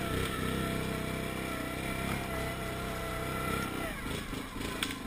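Yamaha Grizzly 700 ATV's single-cylinder four-stroke engine running steadily under throttle, then easing off about three and a half seconds in. A brief sharp click near the end.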